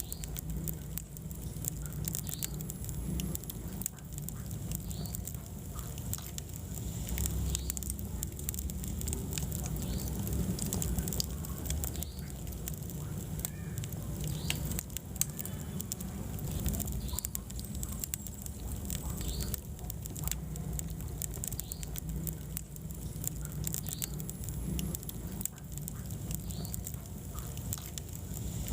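Wood fire burning in a fireplace: a low steady rumble of the flames with frequent small crackles and pops from the burning logs.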